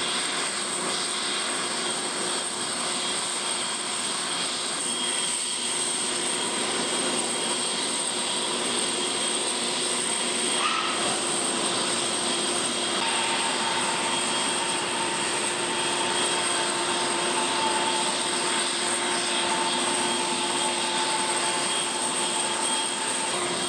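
Steady whine and rush of the parked Antonov An-225 cargo aircraft's onboard machinery running while its nose visor and loading ramp open. A second, higher tone joins about halfway through.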